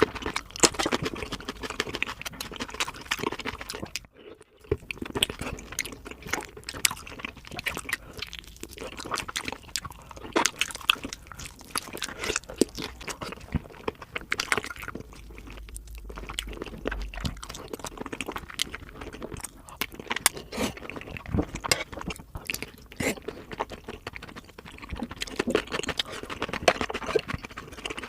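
Close-miked eating of crispy sauced fried chicken, sped up three times: rapid crunching of the crust and wet chewing, with a brief pause about four seconds in.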